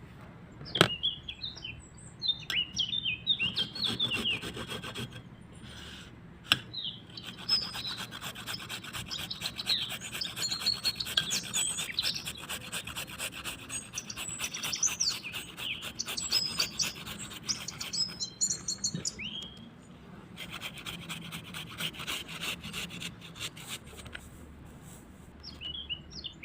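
Birds chirping, with long stretches of fast, even scraping or rubbing.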